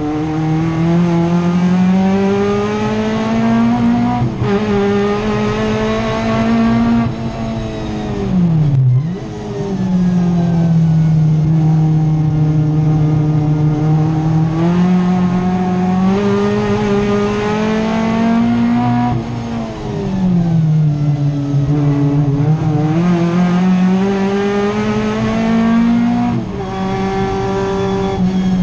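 Race car's engine heard from inside the cockpit at high revs, its pitch climbing steadily on the straights and falling sharply under braking and downshifting, about eight seconds in, about twenty seconds in and again near the end.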